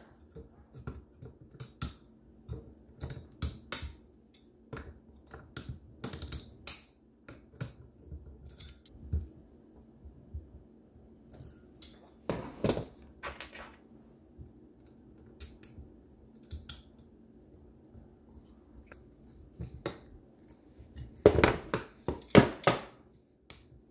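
Scattered metallic clicks and knocks of pliers working at a Helicoil thread insert in an aluminium small-engine block, trying to snap off the insert's tang, with the block shifting on a wooden cutting board. A louder cluster of knocks comes near the end.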